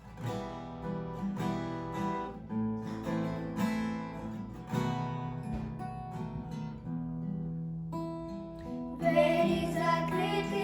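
Acoustic guitar strumming the introduction to a hymn, with chords changing every second or so; about nine seconds in, the family's voices come in singing over it.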